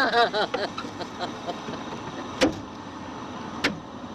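Two sharp knocks about a second apart as a plastic hubcap is struck to snap it onto the car wheel, after a brief voice at the start, over steady background traffic noise.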